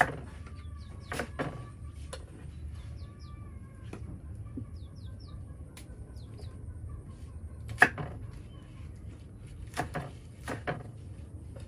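Knife chopping choy sum stalks on a wooden cutting board: about half a dozen sharp, spread-out knocks, the loudest about eight seconds in. Birds chirp in the background.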